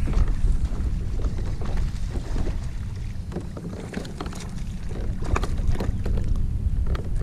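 Kayak on the water: a low rumble of wind on the microphone, with scattered splashes and light knocks against the hull, more of them about two thirds of the way through.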